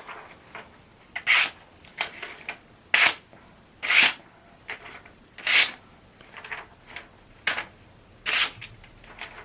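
A string of about seven short, scraping swishes at uneven spacing, roughly one a second, from a handmade steel dagger being handled.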